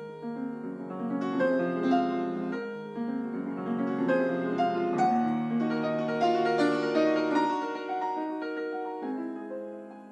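Soft piano music: a melody of sustained notes over chords.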